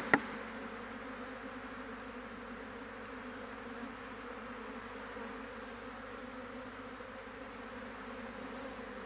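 A swarm of honeybees buzzing steadily, the massed hum of many wings as the swarm is gathered into a hive. A single sharp knock comes right at the start.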